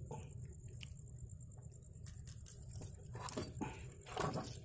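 Soft handling noises of a freshly caught fish being held and moved against a plastic tackle box, with a few light knocks near the end, over a low steady hum.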